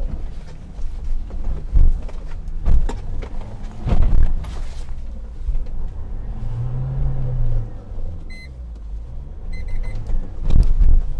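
JMC Yusheng's 2.4-litre turbo-diesel engine running at low speed in low-range first gear as the SUV crawls over rough ground, with several sharp knocks and thumps from the body and suspension over the bumps. About midway the engine note rises and falls, and near the end come two short sets of electronic beeps.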